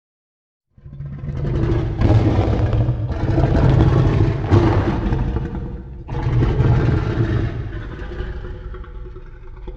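Loud monster sound effect made from Godzilla film sounds, with a low, pitched, mechanical-sounding cry. It starts about a second in after silence, breaks and restarts near six seconds, then slowly fades.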